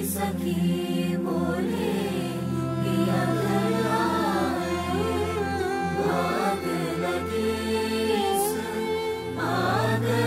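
Group of male voices singing a melody together, choir-style, over sustained low bass notes that change pitch twice.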